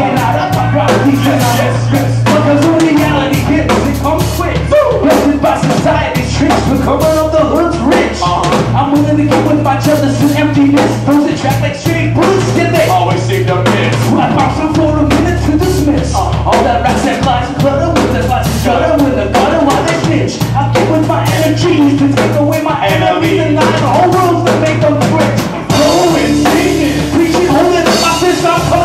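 Live band playing: electric bass, drum kit and electric guitar, the drums keeping a steady beat under a bass line that shifts between held notes every few seconds.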